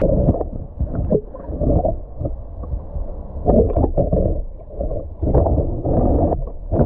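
Water sloshing and churning around a submerged camera, heard from under the surface: muffled, irregular surges as a carp is let go from a weigh sling.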